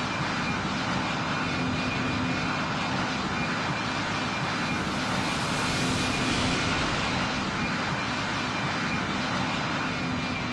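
Airplane engines passing by: a steady rush of engine noise with whining tones, swelling to its loudest about six seconds in and then fading, the whine dropping slightly in pitch near the end.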